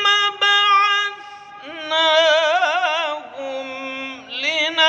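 A single voice chanting the Qur'an in melodic tajwid style. It draws the words out in long ornamented phrases whose pitch wavers and glides, dropping to a lower note in the middle and rising again near the end.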